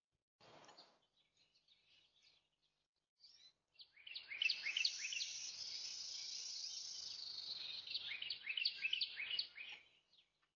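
Small songbirds chirping quickly and repeatedly over a steady high hiss, starting about four seconds in and stopping just before the end. A short burst of rustling noise comes just under a second in.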